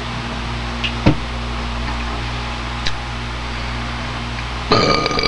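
Steady room hum with a couple of faint knocks, then near the end a person lets out a loud, long, rough belch.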